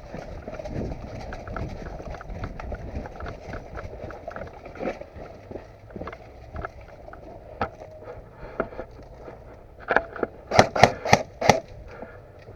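Rustling movement with scattered small clicks, then about two-thirds of the way in a quick string of six or seven sharp cracks, typical of an airsoft gun being fired.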